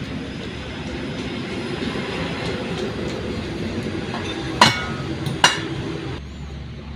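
Two sharp, ringing metal strikes less than a second apart over a steady workshop rumble, a hammer knocking on the propeller shaft's yoke to free or seat the universal-joint cross. The rumble drops away abruptly near the end.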